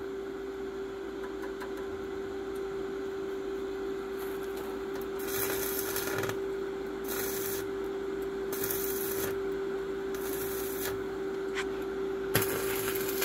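Electric arc welding on steel: the arc crackles and hisses in about six short runs of half a second to a second each, over a steady hum.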